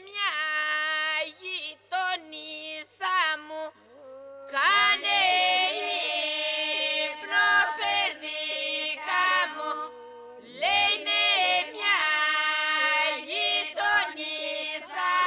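A women's group singing unaccompanied in the Epirote polyphonic style. A lead voice sings a bending melodic line alone at first; a few seconds in, the other voices join, holding a steady drone note beneath her.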